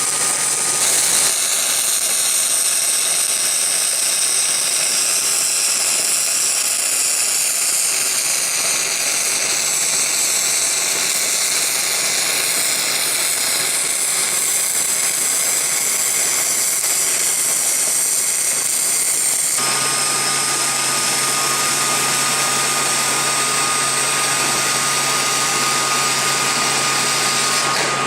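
A power tool running steadily for a long stretch, its pitch wavering slightly as it works, over a steady low hum; its sound shifts about twenty seconds in.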